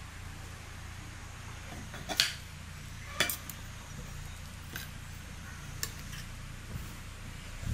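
Metal utensils clinking against cookware, with a few sharp clinks, the loudest two about two and three seconds in, over a steady low hum.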